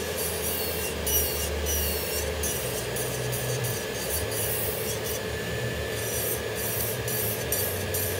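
Electric nail drill (e-file) running steadily while its bit files down product on a fingernail. A scratchy rasp comes and goes as the bit touches and leaves the nail.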